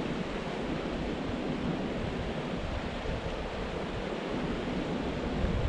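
Steady rush of river water running past, with wind rumbling on the microphone.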